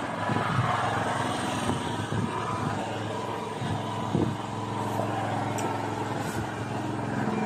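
Engine running steadily aboard a motorized outrigger fishing boat, an even drone, with a few light knocks on the deck near the middle.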